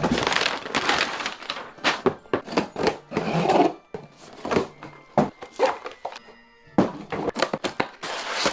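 Music over a run of sharp knocks and cracking noises coming in clusters, with quieter gaps between them.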